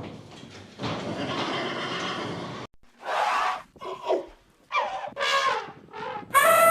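Horse neighing: a long breathy call, then several short whinnies falling in pitch. Near the end a louder call with a steady pitch begins.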